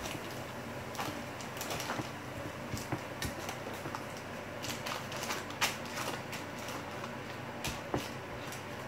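Hands pressing and spreading bread dough in a lined glass baking dish: scattered soft taps and rustles at irregular intervals, with a couple of sharper clicks past the middle.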